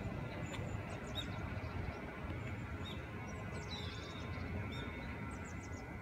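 Steady outdoor background noise with a few faint, short bird chirps, the clearest a brief sliding call about four seconds in.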